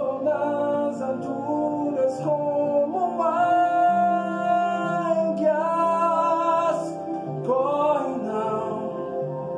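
A man singing a worship song in long held notes that glide between pitches, over a steady sustained musical backing.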